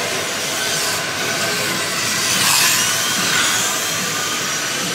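Slot cars running on a large banked track: the steady whine of their small electric motors and pickup braids on the rails, with one car passing close about halfway through, its whine swelling and then fading.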